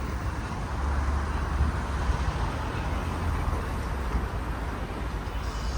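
Steady road traffic noise with a low engine rumble, swelling slightly about a second in.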